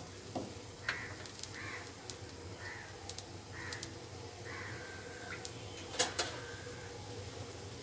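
A bird calling five times, about once a second, over a faint steady sizzle of eggplant pieces frying in oil in a pan; a sharp click about six seconds in.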